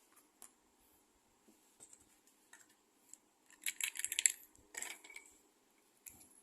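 Small hard objects being handled on a work surface: scattered light clicks, then a short burst of clattering a little before halfway and another brief clatter about a second later.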